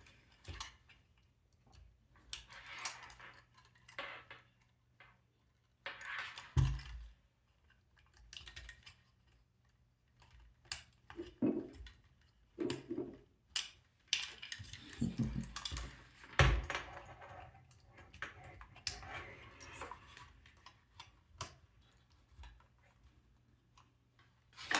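Hands working small plastic robot parts and cables: irregular clicks, taps and light rattles as cable connectors are pushed into the motors, with a couple of sharper knocks.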